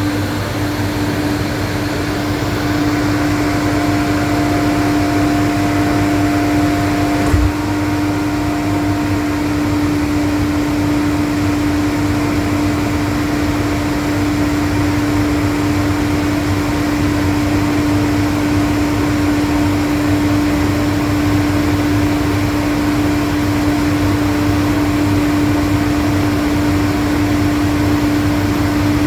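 Atlas Copco GA 15 FF rotary screw air compressor running steadily, a loud even hum with one steady tone over it. A single sharp click about seven seconds in.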